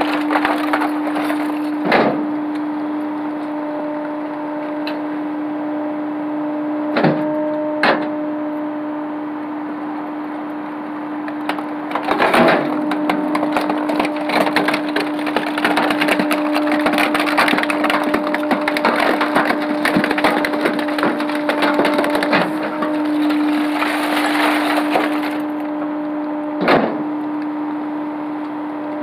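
Rear-loader garbage truck's hydraulic packer cycling: a steady hum throughout, a few sharp metallic clanks, and from about twelve seconds in a long stretch of crackling and snapping as the load is crushed and compacted.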